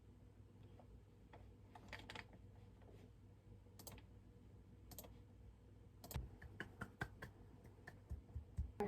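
Typing on a computer keyboard: faint, scattered key clicks that come faster in the last three seconds.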